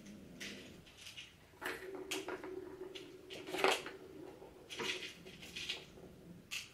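Light taps and rattles of a wire pet pen as two cats paw at each other through the bars, with the sharpest clatter about halfway through. A low steady hum runs under the taps for about three seconds in the middle.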